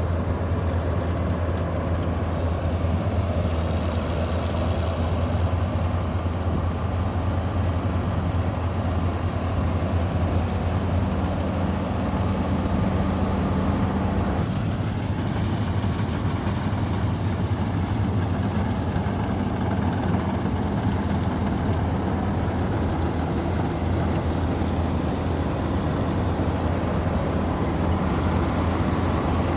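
Combine harvester running steadily in a wheat crop, a constant low engine hum with machinery noise over it; the tone shifts slightly about halfway through.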